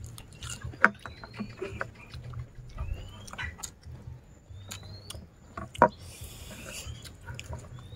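Close-up eating sounds: chewing and lip smacking on fried chicken and papaya salad, with many small clicks and taps and two sharp louder ones, about a second in and near six seconds. A bird repeats a short rising whistle every second or two.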